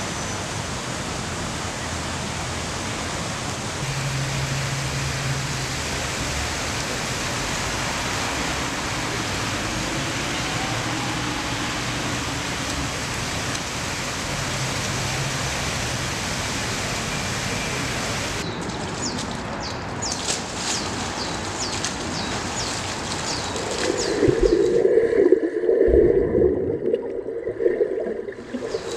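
Steady rush of a fountain's falling water. About two-thirds of the way in it gives way to sharp splashing, and near the end to a muffled, louder underwater sound of a swimmer in a pool.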